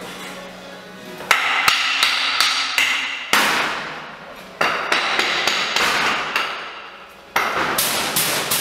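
Loud banging and clattering in four sudden bursts, each a quick flurry of hard strikes that fades away over a second or two.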